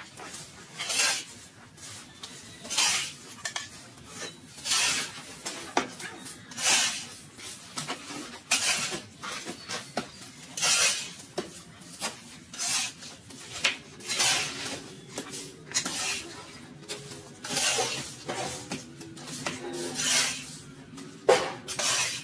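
Rhythmic scraping, one stroke about every two seconds, each stroke a short rasp.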